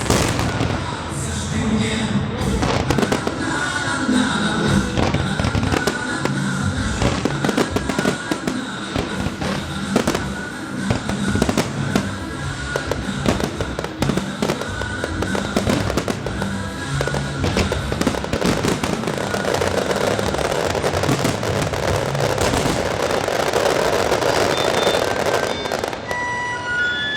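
Fireworks bursting and crackling continuously over music, with a dense stretch of crackling near the end.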